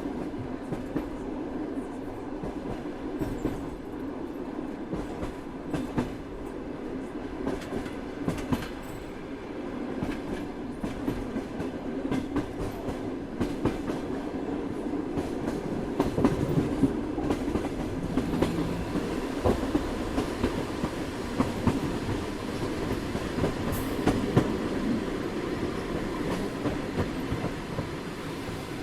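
Train in motion: a steady rumble of wheels rolling on the track, broken by frequent sharp clicks and knocks of the wheels passing over rail joints, a little louder and busier from about halfway through.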